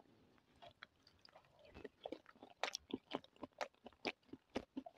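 Close-up mouth sounds of chewing a spoonful of herring under a fur coat, a soft salad of beetroot, herring and mayonnaise: faint short clicks, several a second, starting about two seconds in.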